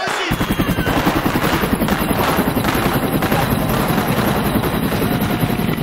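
Helicopter in flight heard from inside the cockpit: the rotor's rapid, even beat over steady engine noise, starting abruptly a fraction of a second in.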